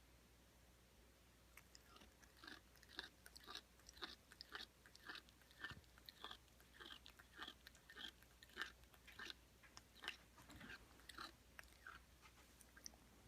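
A cat grinding its teeth: a faint run of short gritty clicks and crunches, a few a second. It starts about a second and a half in and dies away near the end.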